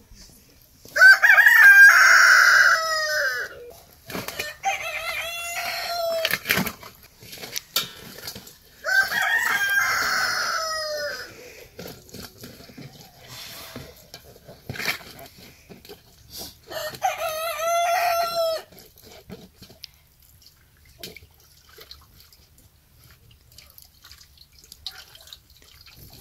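Rooster crowing three times, each crow a long cock-a-doodle-doo about two seconds long, roughly eight seconds apart, with softer calls between the first two. The last crow ends a few seconds past the halfway point.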